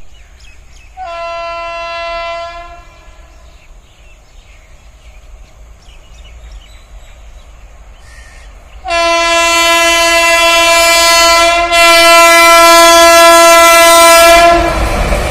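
Horn of a WAP-7 electric locomotive on an approaching train: a short blast about a second in, then a long, louder blast from about nine seconds that lasts nearly six seconds, with a brief break near twelve seconds. Near the end the rumble of the oncoming train grows.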